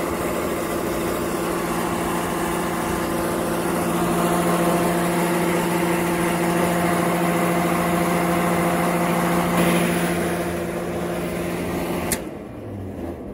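York rooftop gas pack unit running with its belt-driven indoor blower fan turning, a loud steady hum over a whirring noise. The technician hears it as bad, shot fan shaft bearings. The sound drops off sharply with a click near the end.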